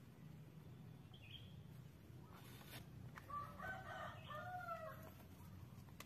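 A rooster crowing faintly: one crow of about two seconds, starting about three seconds in.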